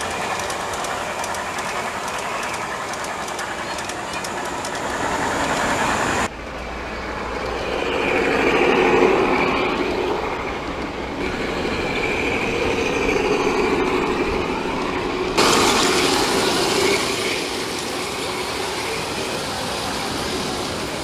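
G-scale model trains rolling along outdoor garden-railway track: a steady running noise of wheels on the rails and motor hum. The sound changes abruptly about six seconds in and again about fifteen seconds in.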